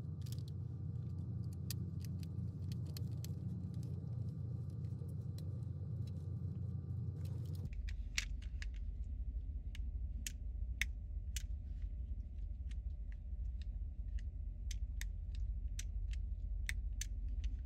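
Scattered small clicks and light rattles of hard plastic toy parts being handled and fitted together, over a steady low hum; the hum shifts abruptly about eight seconds in, after which the clicks come more often.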